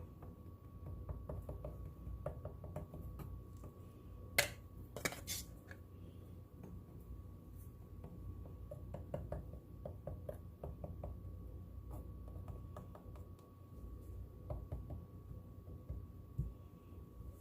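Scattered small clicks and taps of objects being handled on a work table, with two sharper clicks about four and five seconds in, over a faint steady hum.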